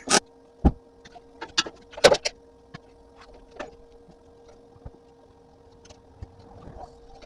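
Metal tools and parts knocking and clanking on a workbench: a few sharp knocks close together in the first couple of seconds, then sparse light ticks, over a steady electrical hum.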